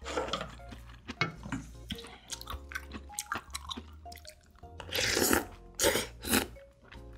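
Close-up eating sounds of noodle soup: chewing, then a long loud slurp of noodles and broth from a spoon about five seconds in, followed by two shorter slurps, over soft background music.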